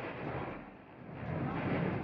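Rumbling noise aboard the Blue Star Naxos car ferry under way: wind on the microphone over the ship's engines, dipping about a second in and swelling again.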